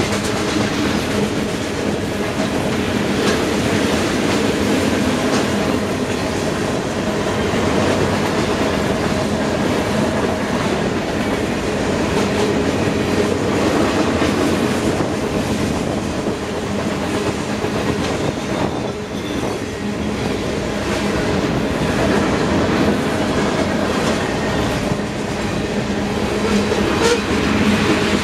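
Freight train's cars, tank cars and covered hoppers, rolling past steadily: a continuous rumble of steel wheels on rail with scattered clicks as the wheels cross the rail joints.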